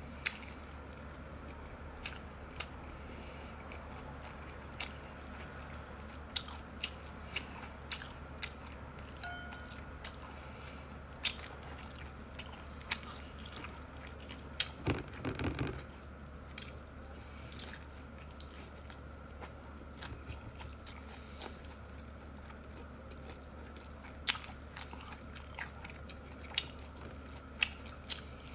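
Close-miked chewing and biting of sea snail meat, with scattered sharp clicks and crunches and a louder stretch about halfway through, over a steady low hum.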